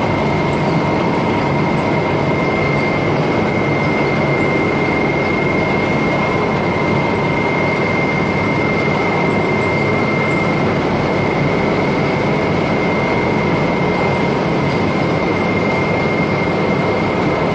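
Industrial continuous conveyor-belt fryer running: a steady mechanical noise with a constant high whine over it.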